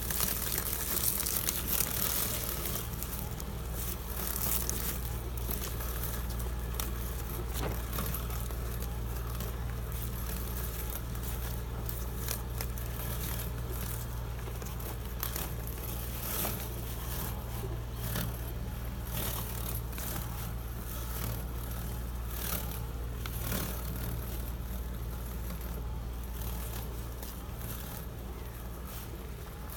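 Husqvarna Automower robotic lawn mower driving over grass and dry fallen leaves: a steady low hum with irregular crackling of leaves under its wheels and blades.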